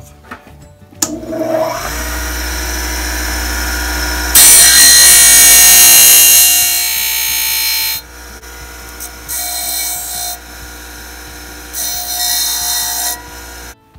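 Bench disc sander motor spinning up with a rising whine, then running steadily as a plastic part is ground against the abrasive disc: a loud grinding rasp for several seconds, then two shorter bursts of grinding. The sound cuts off suddenly near the end.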